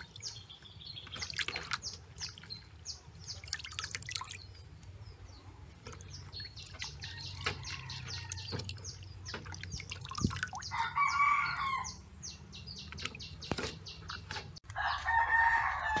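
Water splashing and dripping in a plastic basin as hands wash and squeeze sliced vegetable strips. A rooster crows twice, about eleven seconds in and again near the end, each crow about a second long and louder than the splashing.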